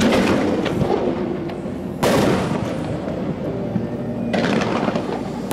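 Aerial fireworks exploding: three loud booms about two seconds apart, each dying away slowly.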